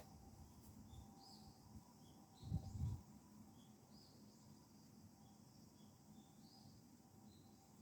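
Faint, sparse chirping of small birds, short high calls every second or so, with a dull low thump about two and a half seconds in.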